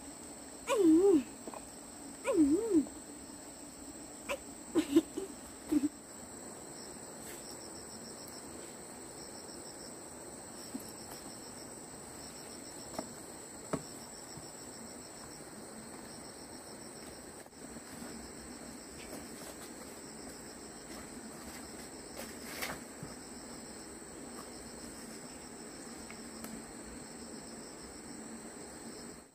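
Insects shrilling steadily in the forest: one continuous high tone with a fast pulsing chirp beneath it. In the first few seconds a few short, loud voice sounds waver up and down in pitch, and a few light knocks follow later.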